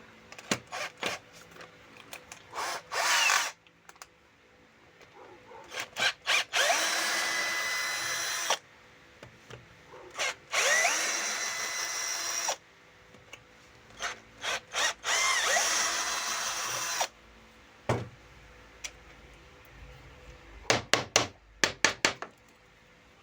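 Power drill driving screws into wood in three runs of about two seconds each, plus a shorter one earlier, with brief trigger spurts and clicks between the runs.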